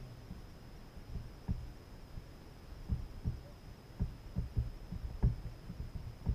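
Soft, irregular low thumps and knocks on the kayak hull, coming more often in the second half, picked up through the camera mounted on the boat.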